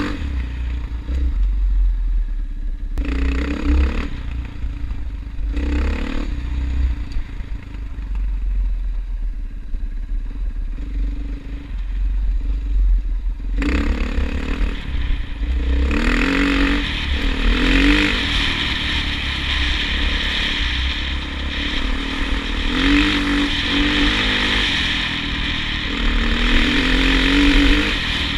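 A vehicle engine running with its pitch rising and falling, over a heavy low rumble and rattling. About halfway through it grows louder and fuller.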